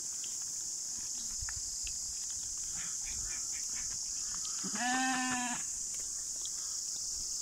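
One bleat from an animal in a passing flock of sheep and goats, about five seconds in, lasting just under a second, over a steady high-pitched hiss.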